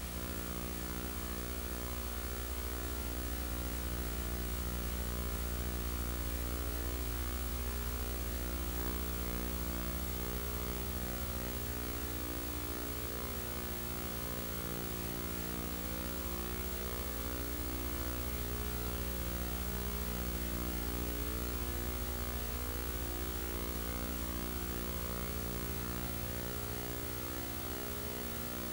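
Steady electrical mains hum with a buzz of its higher harmonics and a constant hiss.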